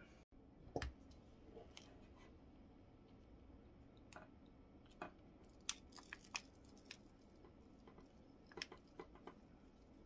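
Handheld coax stripping tool worked on RG6 quad-shield cable: scattered faint clicks and crunches as its blades bite into the cable jacket, with a cluster of quick clicks in the middle and another near the end and near silence in between.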